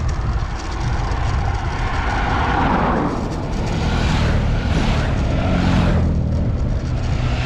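A group of motorcycles, BMW GS adventure bikes, passing one after another, their engine noise swelling and fading several times, over a steady low rumble of wind on the microphone.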